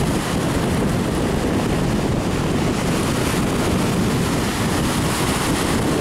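Small Baltic Sea waves breaking and washing up onto a sandy beach in a steady wash of surf, with wind buffeting the microphone.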